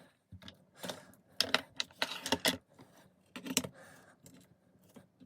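Small clicks and light clatter of a lock and a pinning tray being handled as the lock is set up for gutting, in several short clusters.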